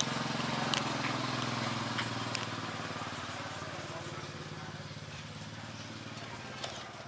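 An engine running steadily in the background and fading slowly away, with a few sharp clicks over it.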